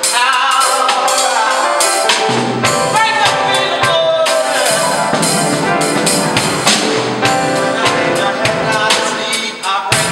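Music: a song with piano, percussion and a singing voice.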